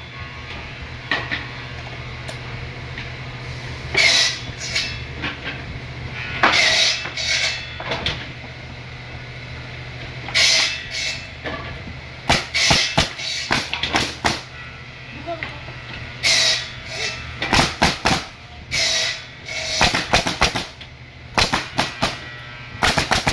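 Pneumatic coil nail guns firing nails into wooden pallet boards, each shot a sharp crack with a short hiss of air. A few single shots come seconds apart at first, then quicker runs of shots fill the second half, over a steady low hum.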